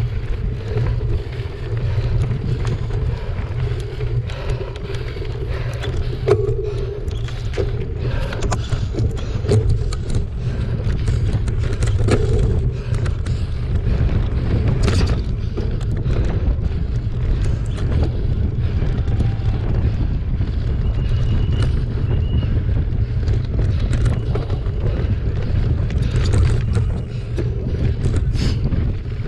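Mountain bike ridden fast over a dry, stony dirt singletrack: a steady rumble of wind buffeting the camera microphone, with tyres crunching and the bike rattling and knocking over the rough ground, a couple of sharper knocks partway through and near the end.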